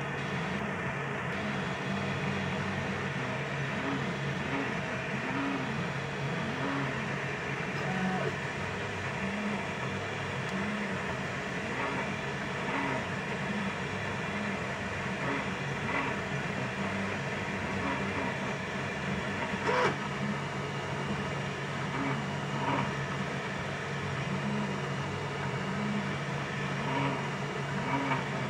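FDM 3D printer running a print: its stepper motors give short, shifting whining tones as the print head moves back and forth, over a steady hum. A single sharp click about two-thirds of the way through.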